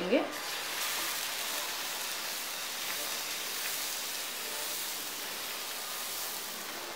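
Moong dal dosa batter sizzling with a steady hiss on a hot non-stick dosa pan as it is poured and spread in circles with a ladle.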